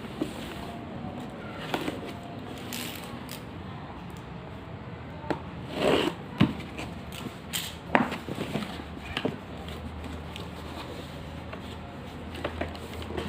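Toy car packaging being handled and opened: rustling with scattered sharp clicks and taps, a louder rustle and several clicks about six to eight seconds in.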